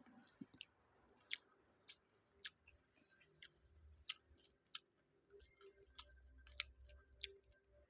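Quiet eating of fried rice: faint, irregular sharp clicks of chewing and mouth sounds, about two a second, over a low background hum.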